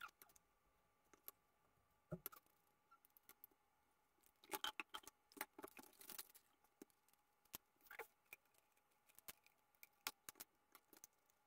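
Faint, scattered clicks and taps of plastic cups, a tub lid and wooden stir sticks being handled and set down on a cutting mat, busiest around the middle.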